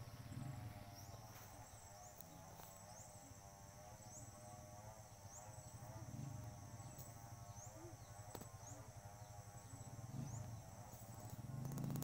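Faint insect chorus in open grassland: a steady high buzz with a short rising chirp about every second or so, over a lower wavering drone.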